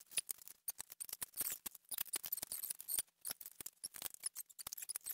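Quick, irregular light clicks and taps, several a second, of wooden beehive pieces being handled and set down on a wooden floor.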